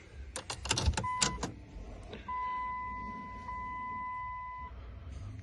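A few sharp clicks of a key working in the ignition lock of a 2000 Dodge minivan, then a steady electronic warning tone from the dash that lasts about two and a half seconds, as the ignition is turned but the engine does not start.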